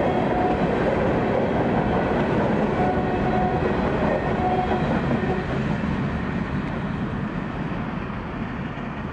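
Freight cars of a Florida East Coast Railway train rolling past on the rails, a steady rumble of wheels and rail, fading over the last few seconds as the end of the train draws away.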